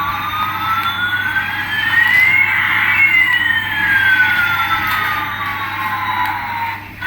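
Electronic siren tone sweeping slowly up in pitch over about three seconds and then back down over about four, with a second fainter tone moving the opposite way. It stops just before the end.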